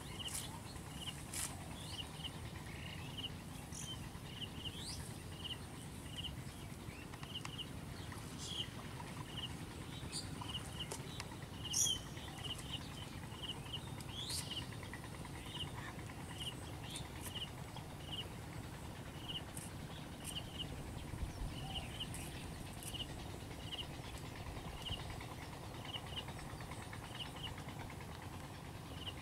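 A small animal's short, high chirp, repeated about once or twice a second over a steady low rumble. A few brief clicks break in, the loudest about twelve seconds in.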